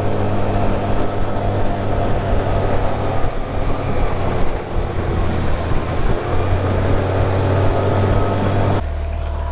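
20 hp Tohatsu four-stroke outboard running steadily at speed, pushing a jon boat, with wind and water noise over it. Just before the end the sound changes abruptly to a steadier, duller hum.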